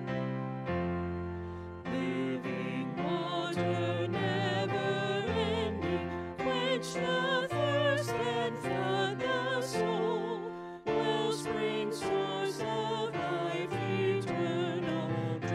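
A hymn sung with keyboard accompaniment: held keyboard chords open it, and about three seconds in a singing voice with wide vibrato takes up the melody. It breaks briefly between phrases just before the last few seconds.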